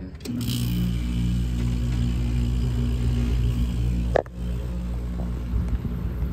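Vintage GE room air conditioner starting up: a steady motor hum switches on just after the start. About two-thirds of the way through it is broken for an instant by a sharp click, then hums on.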